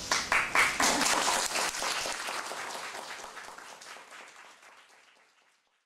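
Audience applauding, the claps loudest at the start and fading out to silence near the end.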